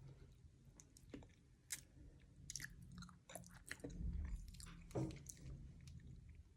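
A person chewing and eating durian flesh: faint wet mouth clicks and smacks, with a soft low thud about four seconds in.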